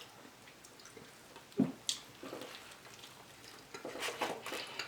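Close-up chewing and mouth sounds of a person eating: soft wet crackles and clicks, with a denser patch near the end.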